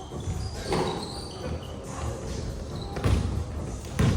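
Basketball bouncing on an indoor court: a few separate thuds, the loudest near the end, echoing in a large hall.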